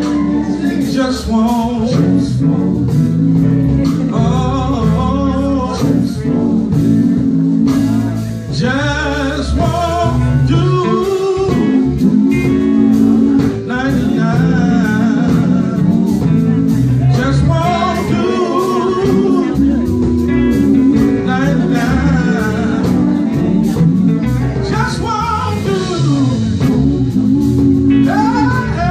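Male gospel quartet singing live, a lead singer over the group's harmonies, with electric guitar accompaniment.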